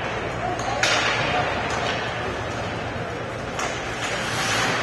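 Ice hockey play: sharp clacks of sticks and puck ringing through the rink, two loud ones about a second in and near the end, with faint distant voices.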